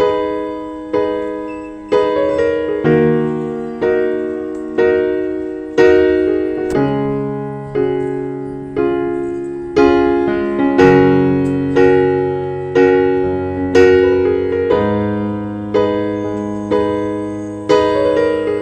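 Piano music: slow chords struck about once a second, each left to ring and fade before the next.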